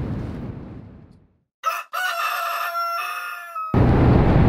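A rooster crowing once over dead silence: a short opening note, then a long held call that falls slightly over about two seconds. Near the end it gives way abruptly to steady outdoor noise.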